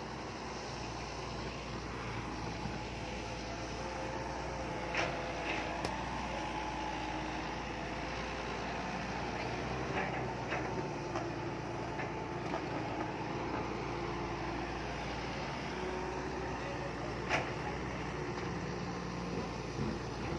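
Heavy earthmoving machinery engine running steadily, its pitch drifting a little, with a few sharp metallic knocks and clanks here and there.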